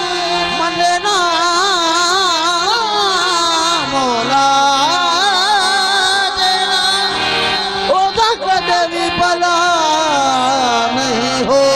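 Male lead singer performing a Punjabi devotional song in praise of Ali, in long ornamented lines that waver up and down, over a steady harmonium drone. A few drum strokes come about eight seconds in.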